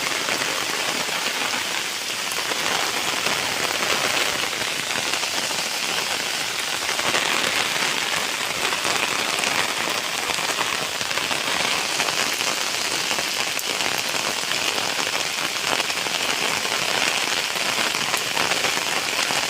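Steady rain falling, a dense even hiss that does not let up.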